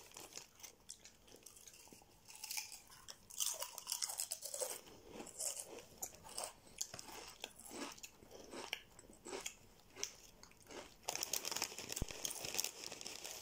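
Potato crisps being bitten and chewed, a run of irregular crisp crunches, denser and louder near the end.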